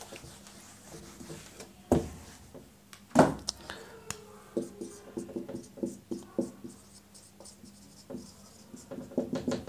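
Whiteboard being wiped, with two sharp knocks about two and three seconds in, then a marker writing on the whiteboard in a quick run of short strokes.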